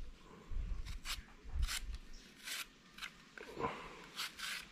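Metal vegetable peeler shaving the skin off a Kim Ju guava in a handful of short, separate scraping strokes.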